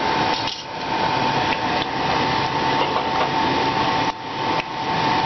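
Egg rolls deep-frying in hot oil in a small stainless-steel pot, the oil sizzling and crackling steadily. A thin steady whine runs underneath.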